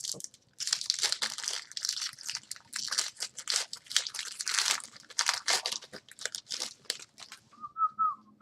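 Plastic trading-card pack wrapper being crinkled and torn open, a dense run of crackles, then cards handled. A few short whistled notes come near the end.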